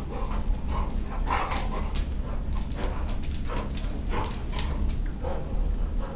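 Young dog playing with a stuffed toy, giving short yips and whimpers at irregular moments, its claws clicking and skittering on the hard tiled floor.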